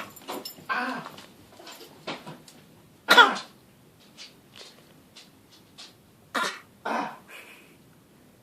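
A series of short coughs with some throat clearing, the loudest about three seconds in and two more firm coughs near the end, with fainter hacks between.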